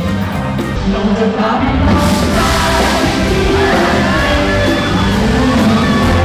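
Loud live concert music with singing, and a crowd yelling and cheering along. About two seconds in the music gets louder and fuller.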